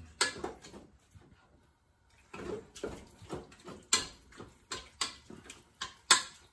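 A wooden spoon stirring meat in a metal pressure cooker pot, giving a series of irregular knocks and scrapes against the pot, with a short pause about a second in.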